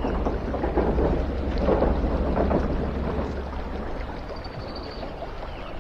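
River water sloshing and splashing in shallow water, over a steady low rumble; the splashing is strongest in the first three seconds.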